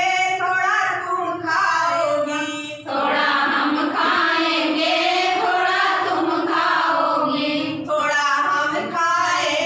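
A group of women singing a children's rhyme together in unison. The singing turns fuller from about three seconds in until about eight seconds.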